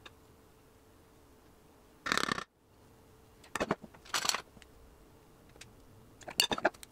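Spatula scraping and tapping against a metal baking pan and glass mixing bowl full of batter: a short scrape about two seconds in, another around four seconds in, with sharp clicks between them and near the end.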